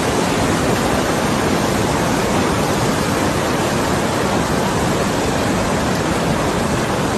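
Loud, steady rush of fast-flowing water, an even noise with no distinct events, which cuts off abruptly near the end.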